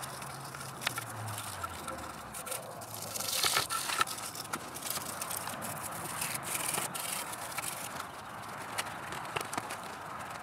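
A small brush scrubbing grime out of the ports of a 1997 SVT Cobra's IMRC intake runner plate: a scratchy rubbing that comes and goes with the strokes, louder about three to four seconds in.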